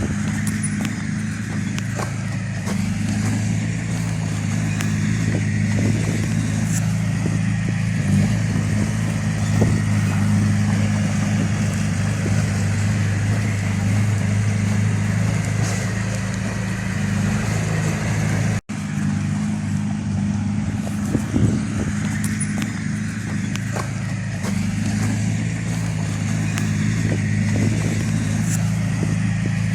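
Heavy machinery's diesel engine running steadily at a constant pitch, with occasional light clanks. The sound cuts out for an instant about two-thirds of the way through.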